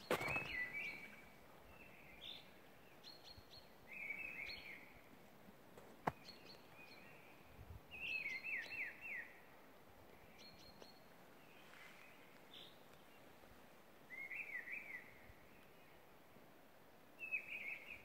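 Small songbirds singing faintly: short phrases of quick notes falling in pitch, repeated every few seconds, with thin higher notes between. One sharp click about six seconds in.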